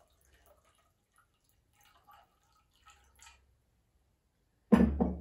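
Faint trickling and dripping of water being poured from a glass jug into a small glass measuring cup. Near the end comes one loud knock, the glass jug being set down on a wooden table.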